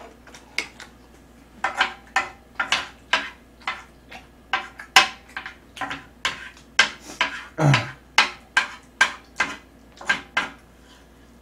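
A spoon and chopsticks knocking and scraping against a metal tray of black-bean-sauce noodles: a run of short, sharp clicks, irregular, about two or three a second. A brief low voice sound comes about two-thirds of the way through.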